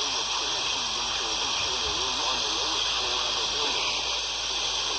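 Steady radio static hiss from a broadcast receiver, with a faint, indistinct voice beneath it.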